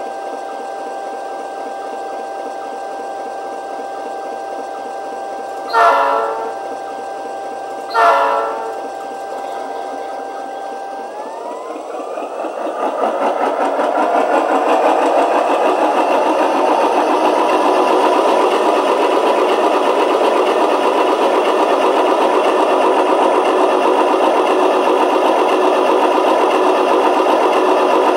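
QSI Titan Q3 model-train sound decoder playing a GE FDL-16 diesel prime mover through a small speaker. It idles with a steady whine, and two short blasts of a Nathan P-3 horn sound about six and eight seconds in. From about eleven seconds the whine rises and the engine revs up to a louder, steady run.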